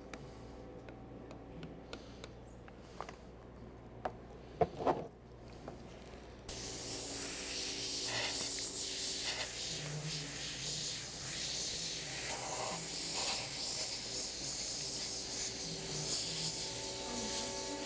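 Small clicks and a brief clinking of handling, then an airbrush starts spraying about six seconds in: a steady hiss of compressed air and thinned paint that begins abruptly and carries on.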